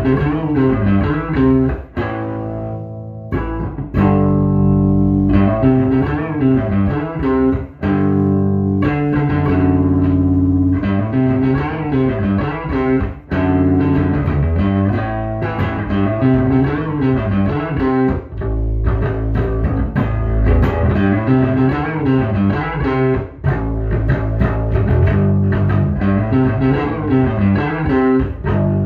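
1976 Rickenbacker 3000 short-scale electric bass played unaccompanied, a continuous run of plucked notes and riffs with a few brief pauses.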